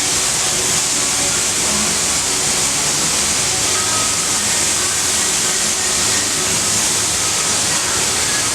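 Steady, loud hiss of compressed air from an air tool used in autobody work, running without a break.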